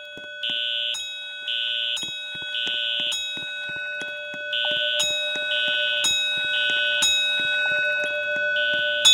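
Fire alarm horns sounding the temporal-three evacuation signal during a system test: three half-second high-pitched blasts about a second apart, then a pause, repeating. Sharp clicks and a thin steady tone run underneath.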